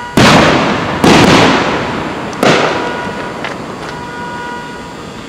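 Aerial firework shells bursting: two loud booms about a second apart, then a lighter bang about a second and a half later, each trailing off in a long echo, with a few faint pops after.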